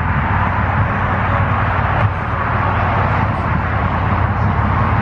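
Pickup truck engine idling with a steady low note, along with general parking-lot noise.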